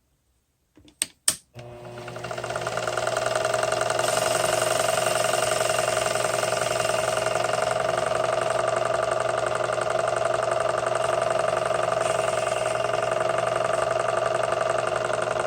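Two sharp clicks, then a Sherline mini lathe's electric motor spins up and runs at a steady speed with a constant whine, winding down near the end.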